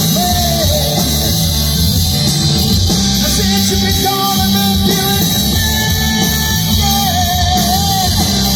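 Rock music with singing and guitar, playing steadily.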